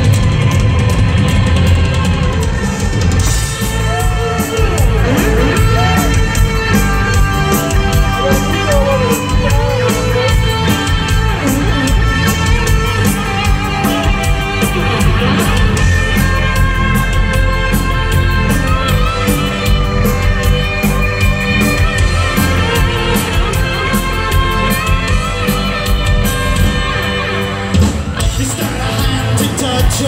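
Live rock band playing loud through a PA: drums, electric guitar and keyboards, with a male lead vocal.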